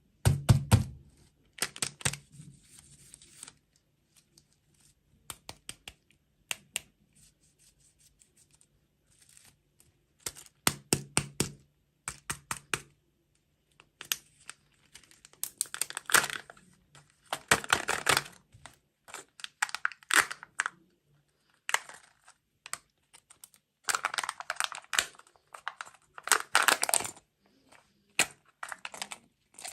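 Close-miked tearing and crinkling of candy and dessert packaging, with sharp clicks and crackles coming in irregular bursts every second or two.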